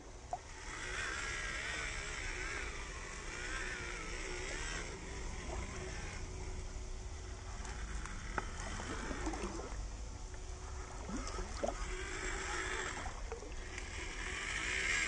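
Small electric drive motor and gearbox of an MN99S 1/12-scale RC Land Rover Defender 90 whining in spurts, its pitch wavering with the throttle, as the truck drives through shallow water and mud, with light splashing from the tyres.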